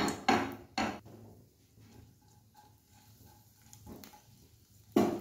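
A spatula knocking against a nonstick kadai: three sharp clacks in the first second, a quieter stretch, then a smaller knock and a loud one near the end.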